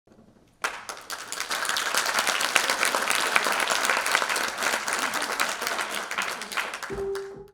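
Audience applauding, starting suddenly about half a second in and running for about six seconds, then fading as a held note of music comes in near the end.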